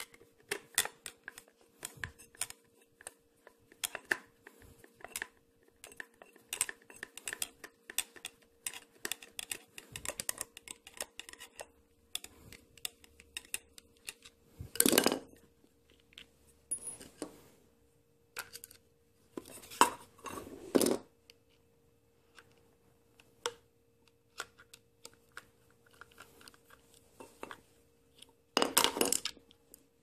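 A washing machine drain pump, its metal mounting plate and a screwdriver being handled: a run of small clicks, taps and clinks of plastic and metal, with louder clatters about halfway, around two-thirds in and near the end. A faint steady hum runs underneath.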